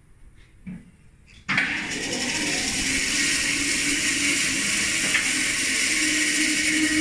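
A.E.W. MK.7 bandsaw's 415 V three-phase electric motor switched on, running with no blade fitted. It starts abruptly about a second and a half in, then runs with a loud, steady whir over a low hum.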